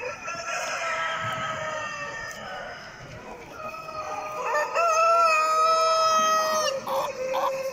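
Roosters crowing: one long crow at the start, then a louder crow about halfway through that holds a steady pitch for about two seconds before breaking off.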